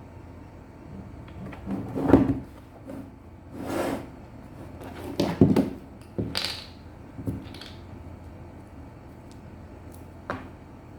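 Irregular knocks and clunks of hard objects being handled and set down, with a short sliding rustle between them, the loudest knock about two seconds in.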